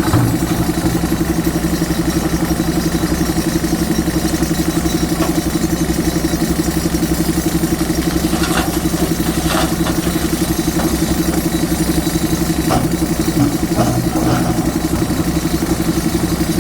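Diesel engine of a JCB 3DX Super backhoe loader running steadily with an even, fast pulse. A few faint clanks come through a little past halfway.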